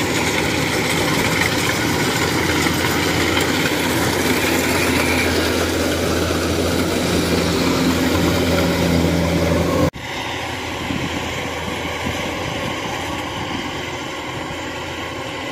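Kubota DC-105X rice combine harvester running under load as it cuts and threshes rice: a steady diesel-engine and machinery drone, loud at first. About ten seconds in it drops suddenly to a quieter, farther-off sound of the same machine.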